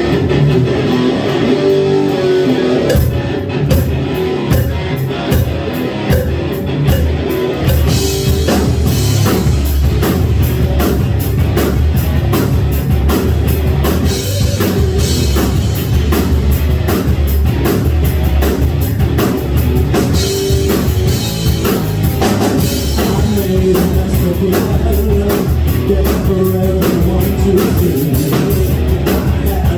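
Live rock band playing: electric guitar opens, drums come in about three seconds in, and the full band with bass and drum kit plays from about eight seconds in.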